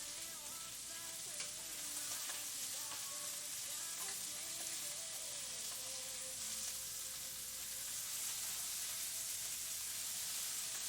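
Ribeye steaks sizzling steadily in a hot frying pan.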